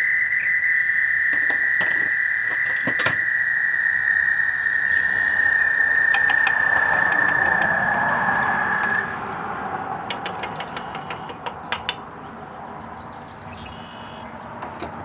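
A steady, high-pitched animal trill that stops suddenly about nine seconds in. A few faint clicks follow.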